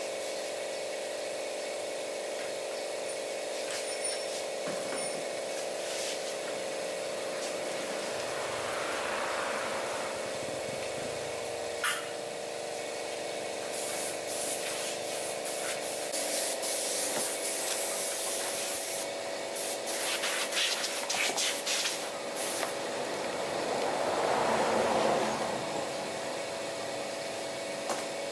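A steady mechanical hum under intermittent rubbing and hissing noises of workshop work, with a sharp click about twelve seconds in.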